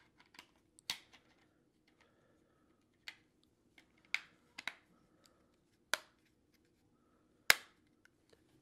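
Plastic clips of a Mugen extended-battery back door snapping into place as it is pressed onto a Samsung Galaxy Note 2. About seven sharp, irregular clicks, the loudest near the end.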